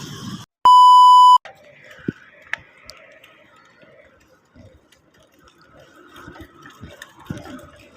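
A loud electronic beep: one steady high tone lasting under a second that starts and stops sharply, after the sound drops out abruptly. Faint background noise with a few light clicks follows.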